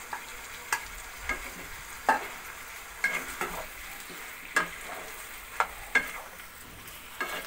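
A wooden spatula stirring chicken and vegetables in a non-stick wok, knocking and scraping against the pan every second or so over a steady sizzle.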